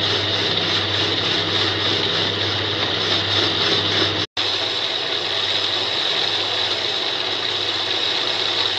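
Homemade metal lathe running, its electric motor driving the chuck as the tool turns an aluminium disc: a steady hum with a high whine over it. The sound cuts out for an instant about four seconds in.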